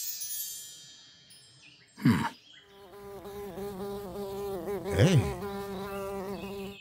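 Cartoon bee buzzing: a steady, wavering buzz that starts about two and a half seconds in and runs on, with a short falling swoop just before it and a brief swoop in pitch near the five-second mark.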